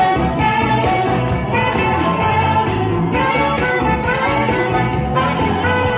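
Alto saxophone played live over a backing track of dance music with a steady beat and singing.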